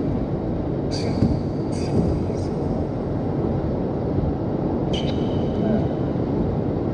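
Necrophonic spirit-box app playing through car speakers: a steady rush of white noise with echo and reverb, broken by a few short, chopped voice-like fragments.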